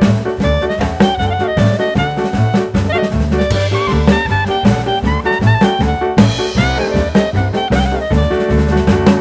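Background music: an upbeat jazzy track with drum kit and brass, on a steady beat.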